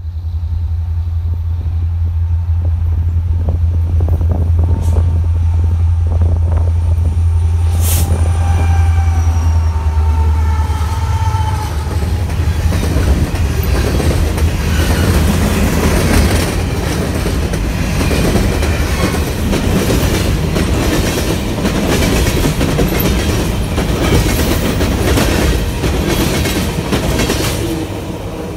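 A CP SD70ACU locomotive's EMD 710 two-stroke diesel drones low as it leads a freight past, followed by a long string of loaded grain hopper cars rolling by, their wheels clicking steadily over the rail joints.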